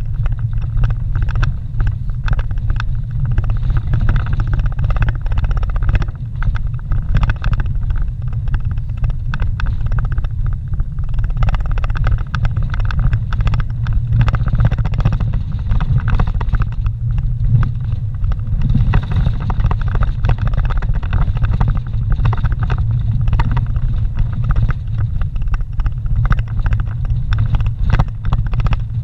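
Vehicle driving on a dirt forest road, heard from inside the cabin: a steady low rumble of engine and tyres, with frequent small knocks and rattles as it rolls over the rough surface.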